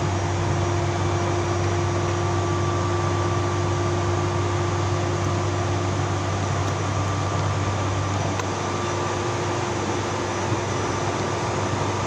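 Steady mechanical hum with a strong low drone and a couple of faint steady higher tones, unchanging throughout.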